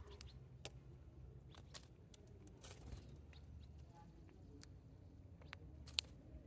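Sparrows pecking and hopping at scattered birdseed: faint, irregular ticks and taps, with one sharper click about six seconds in, over a low steady hum.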